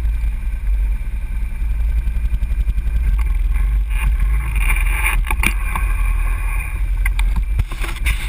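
ATV engines idling with a steady low rumble. About four seconds in, a higher engine sound and a few sharp clicks and knocks join it as a quad beside the camera pulls away, with more clicks near the end.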